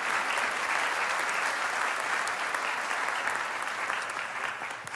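Congregation applauding: steady, dense clapping that starts to die away near the end.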